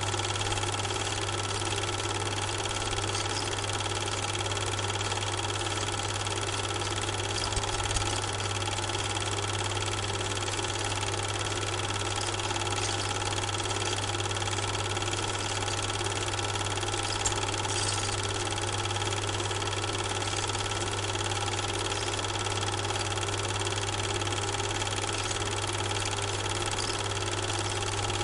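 A steady, unchanging mechanical drone, like a motor running, with a faint click or two.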